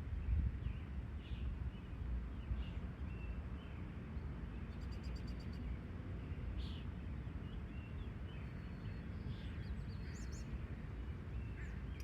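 Outdoor farm ambience: scattered short bird chirps and a few brief high trills over a steady low rumble.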